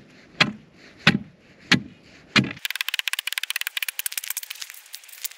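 An ice breaker chopping into frozen pond ice, with four sharp strikes about two-thirds of a second apart. From about halfway through, a fast run of high crackling clicks follows.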